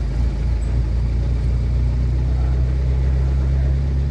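A vehicle's engine running steadily while driving, a low even hum that holds the same pitch throughout.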